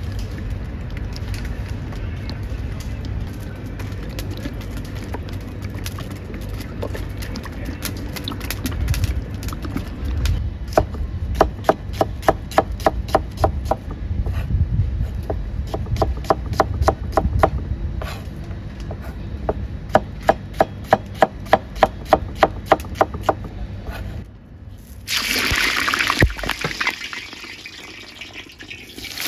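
A low steady rumble, then a kitchen knife chopping onion on a plastic cutting board, two to three sharp strokes a second. Near the end a sudden loud sizzle starts as food goes into the hot oil in a cast-iron kazan and keeps frying.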